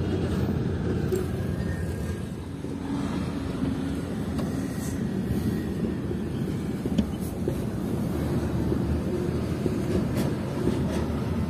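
UD Quester truck's diesel engine running as the truck rolls slowly, heard from inside the cab as a steady low rumble.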